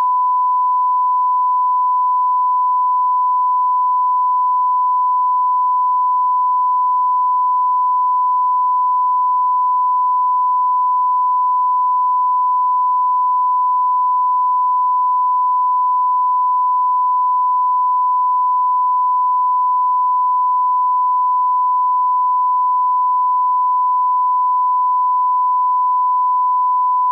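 Steady 1 kHz sine-wave reference tone, the audio line-up tone that accompanies colour bars at the head of a video tape, held at one constant pitch and level.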